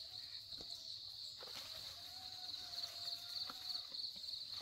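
Steady, high-pitched buzzing of insects with a fast pulsing rhythm, with a few faint knocks and scrapes of a man climbing a tree trunk and a faint long lower note about halfway through.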